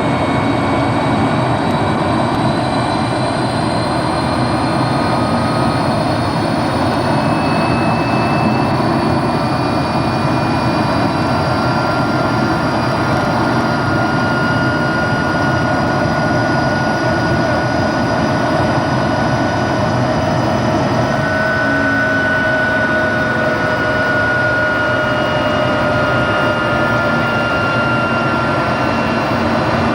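Helicopter in flight heard from inside the cabin: a loud, steady turbine and rotor noise with several high whines that drift slowly in pitch.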